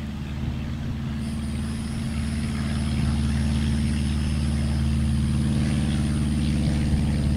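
Vintage light taildragger's piston engine and propeller at takeoff power on its takeoff roll, a steady drone that grows louder over the first few seconds and then holds.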